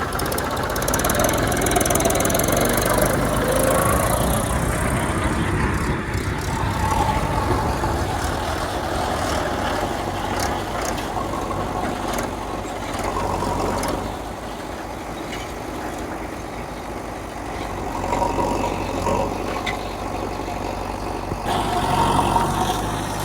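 Diesel engines of a backhoe loader and tractors running at work, with a steady low hum. The engine sound eases off for a few seconds past the middle and grows louder again near the end.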